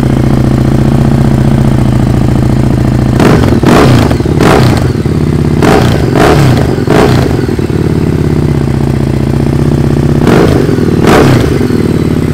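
Harley-Davidson Street Rod 750's V-twin engine running loud through an aftermarket Iron Head exhaust, idling with three rounds of quick throttle blips: about three, six and ten seconds in.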